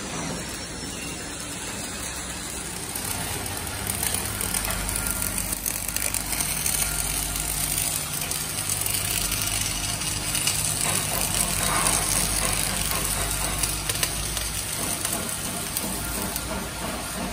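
Electric arc welding on a steel excavator screen bucket: a steady crackling hiss over a low machine hum, growing louder about four seconds in.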